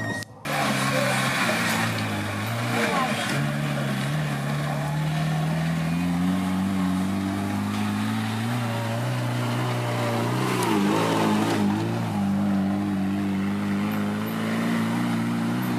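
Off-road 4x4's engine labouring at sustained revs on a steep uphill climb, its pitch slowly rising midway and wavering briefly about two-thirds through before holding steady.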